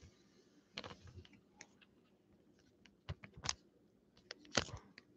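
Scattered light clicks and taps of Pokemon trading cards being handled and shuffled, with a few sharper taps in the second half.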